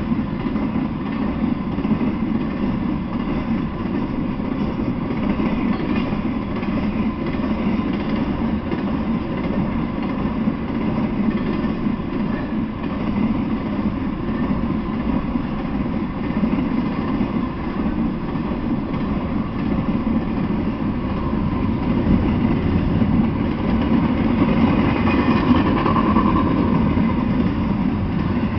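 A freight train carrying semi-trailers on flatcars rolls past. Its wheels make a steady rumble on the rails that gets a little louder near the end.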